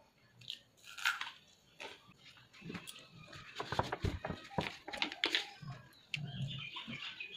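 Close-miked eating sounds of a person eating rice and curry by hand: chewing and lip smacks, with short clicks and taps of fingers against a steel plate. Near the middle, a plastic water bottle is picked up and handled.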